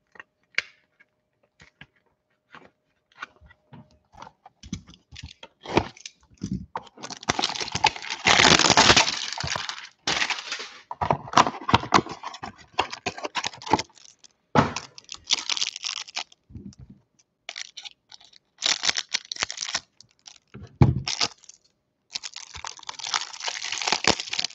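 A cardboard hanger box of trading cards being handled and opened, then its plastic-wrapped card pack cut with scissors and torn open. Irregular crinkling, crackling and tearing, loudest about eight to ten seconds in and again near the end.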